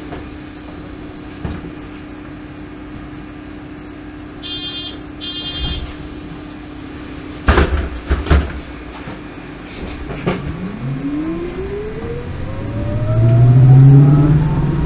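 Inside a MAN Lion's City Hybrid bus: two short bursts of high beeping about five seconds in, then two loud thumps as the doors shut. The bus then pulls away on its electric drive with a smooth rising motor whine, and near the end a low diesel engine drone swells up loudly.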